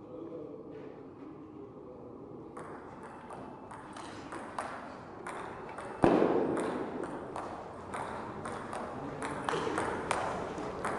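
Table tennis ball clicking sharply off bats and table in a rally, a quick run of pings that starts about two and a half seconds in. About six seconds in, the hall noise jumps suddenly louder beneath the clicks.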